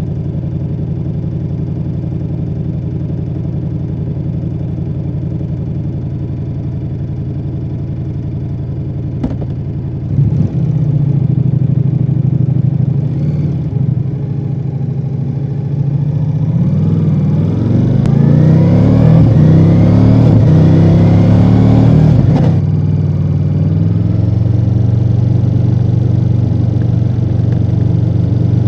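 2024 Ducati Multistrada V4 Rally's V4 engine through its stock exhaust, running low and even, then stepping up in revs about ten seconds in. Past the middle it accelerates hard, revs climbing in several rising pulls, then drops off suddenly and settles to a steady run near the end.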